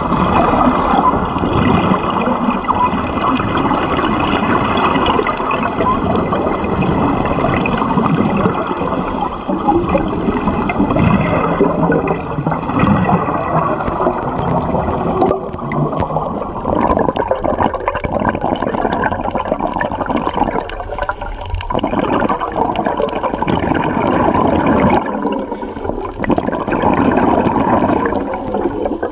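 Continuous underwater gurgling and rushing water with scuba divers' breathing bubbles, rising and falling in strength.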